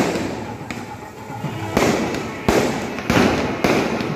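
Festival fireworks display: aerial shells bursting in a rapid series of loud bangs, about five in four seconds, each trailing off in an echoing rumble.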